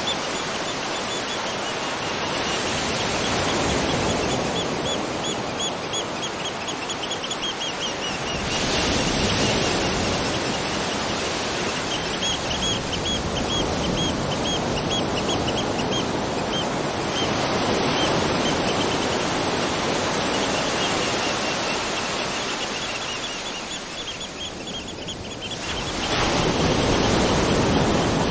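Waterfall rushing in a steady wash of noise, with a bird calling over it in runs of quick, short, high chirps. The sound of the water changes abruptly three times, about 8, 17 and 26 seconds in.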